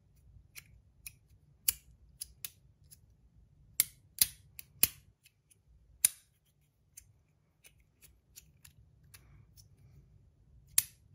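Brass magnetic stack slider fidget being played with: a run of sharp, irregularly spaced metallic clicks as its pieces are slid and snapped together, busiest about four to five seconds in.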